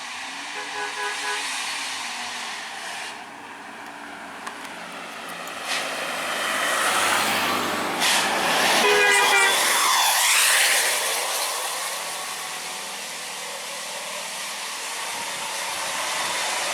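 Indonesian bus "telolet" multi-tone air horn playing a short run of stepped notes, with a second burst of melody about nine seconds in. Under the second burst, the noise of a large vehicle swells as it passes close by.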